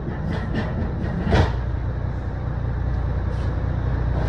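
Manual pallet jack rolling over a box truck's cargo floor, with a sharp clank about a second and a half in, over a steady low rumble.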